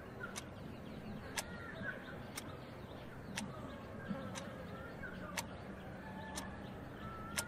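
Quartz alarm clock ticking steadily, one tick a second, with faint bird chirps in the background.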